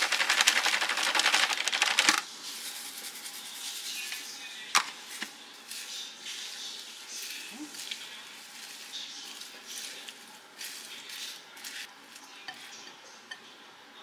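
Crumbled seasoned laver flakes shaken out of a bag into a glass bowl: a dense crackly rustle that stops abruptly about two seconds in. Then the food is tossed by hand and with a silicone spatula in the glass bowl, making soft rustling and light clicks against the glass, with one sharp tap about five seconds in.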